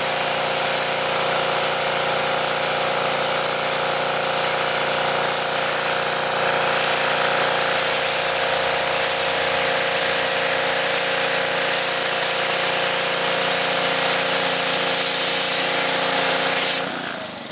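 Pressure washer jet spraying water onto a car's hood: a steady loud hiss over the pressure washer's running motor. The spray cuts off near the end, leaving the motor running.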